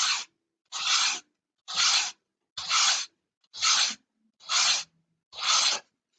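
Sandpaper rubbed by hand along the edge of a model airplane wing, shaping it to a taper: seven even strokes at a bit more than one a second.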